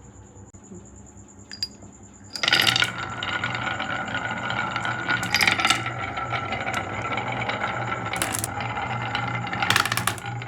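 Marbles rolling and clattering down a wooden HABA Slope marble run, starting about two seconds in, with a continuous rattle and sharp clicks as they drop and strike the wooden pieces.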